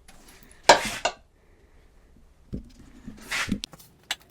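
A roller loaded with melted beeswax is worked in the wax and over plastic beehive foundation. Two short scraping strokes come about a second in and again near the end, with a few light clicks.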